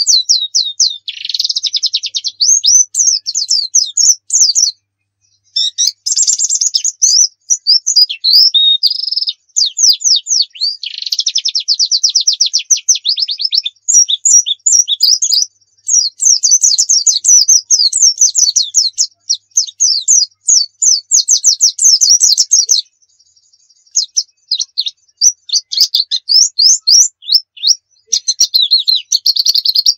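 A pleci dakun, a white-eye, sings a loud, fast, high-pitched twittering song. Rapid trills and chirps run in phrases of a few seconds with short breaks, and there is a longer pause about two-thirds of the way through.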